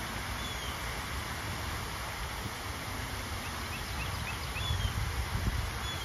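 Low rumble of wind on the microphone, a little stronger about five seconds in, with faint short bird chirps now and then.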